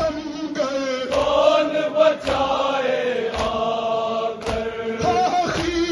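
Men's voices chanting a noha, a Shia mourning lament, in long held lines, over a sharp beat about once a second: the mourners' matam, unison chest-beating in time with the chant.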